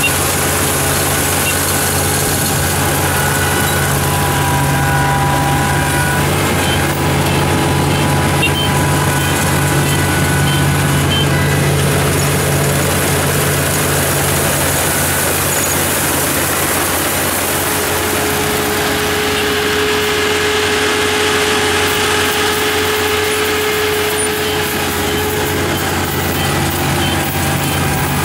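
Kubota ER447 combine harvester's diesel engine running steadily under load as it cuts and threshes rice, with thin machinery whines that come and go over the engine hum.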